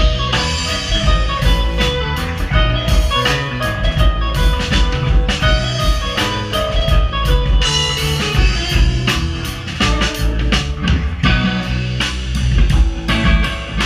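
Live rock band playing: electric guitars, keyboard and drum kit together, with steady drumming under the guitar and keyboard lines.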